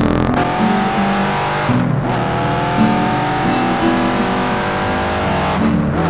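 Kawasaki KZ650 air-cooled inline four, open through straight-through mufflers, accelerating under load. The revs climb, dip briefly about two seconds in and again near the end as the gears are shifted up, then climb again.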